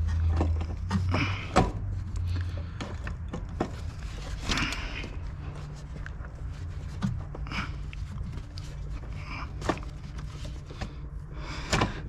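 Hands working a tight plastic wiring connector and trim by the seat: scattered clicks, taps and rustles, with a low steady hum underneath.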